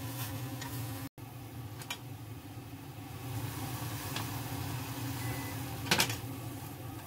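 Steady low mechanical hum with a few light clicks and taps, the sharpest about six seconds in; the sound drops out briefly just after one second.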